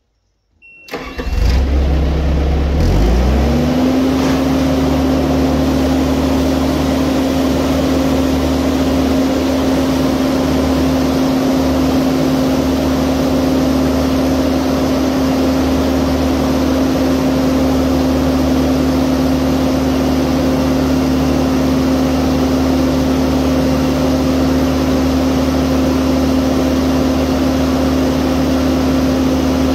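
A Bobcat skid-steer loader's engine starting about a second in, speeding up over the next couple of seconds, then running loud and steady at high speed while the loader raises its lift arms.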